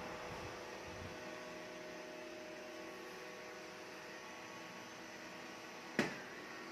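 Ximei G robot vacuum cleaner running steadily, its motor and fan giving a constant hum with several steady tones. A single sharp knock comes about six seconds in.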